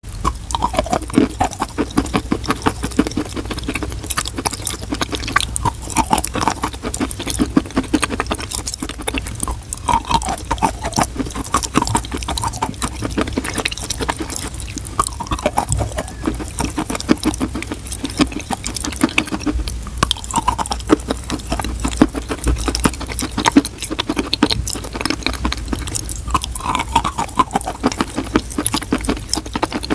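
Close-miked chewing of chalk, some pieces coated in a wet paste: a dense, continuous stream of crunching and crackling bites.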